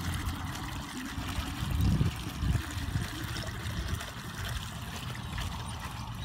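Irrigation water welling up from a valve riser into a flooded pasture, bubbling and splashing steadily around a hand working the valve cap. Gusts of wind rumble on the microphone, strongest about two seconds in.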